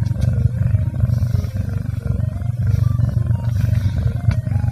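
Domestic kitten purring loudly and steadily while being stroked, a continuous low 'motorboat' rumble right at the microphone.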